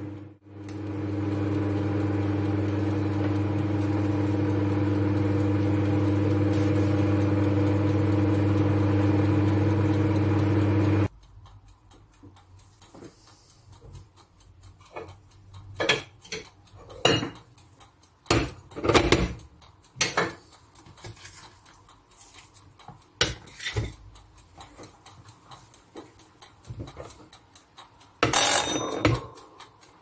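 Microwave oven running with a steady hum, which cuts off suddenly about eleven seconds in as the cooking ends. Then come scattered knocks and clicks, and a short ring near the end.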